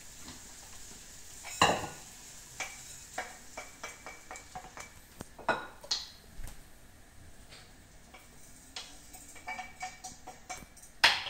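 A metal utensil scraping and knocking against a steel wok, with irregular clinks and knocks, some of them ringing briefly. The loudest knocks come at about two, five and a half and eleven seconds in.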